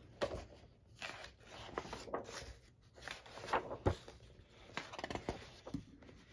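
Large paper pages of a paper doll book being turned by hand: a run of paper rustles and flips, the sharpest a little past the middle.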